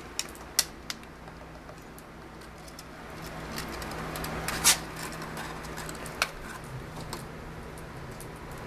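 Scattered sharp clicks and short scrapes, the loudest about halfway through, as a tabby cat reaches up and claws at a wooden window frame. A steady low hum runs underneath.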